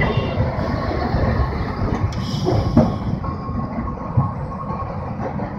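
Kolkata tramcar running along street track, heard from inside the car: a steady low rumble of wheels on rails, with a couple of sharp clicks from the wheels and track. It grows a little quieter in the second half.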